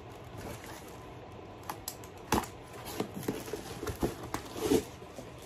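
Packaging being handled as items come out of a cardboard box: scattered rustles, taps and light knocks, the sharpest about two and a half seconds in.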